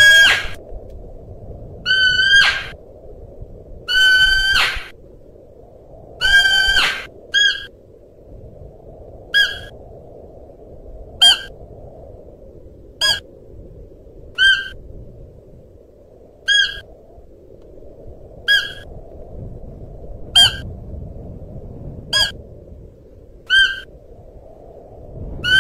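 Siberian musk deer calling: a series of high-pitched calls, four longer drawn-out ones in the first seven seconds, then about ten short, clipped calls, one every 1.5 to 2 seconds, over a steady low background noise.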